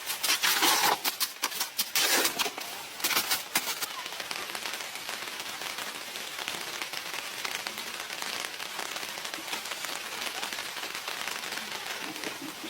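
Rain falling steadily, an even patter of fine drops. It opens with a few seconds of louder, sharp crackling and clicking before settling.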